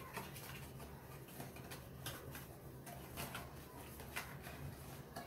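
Scattered soft clicks and taps of kit packaging and plastic items being handled, over a faint steady low hum.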